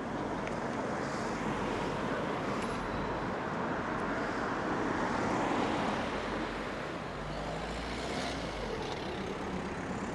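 Road traffic noise: a steady rush of passing motor traffic that swells to its loudest about five to six seconds in, as a vehicle goes by, then eases off.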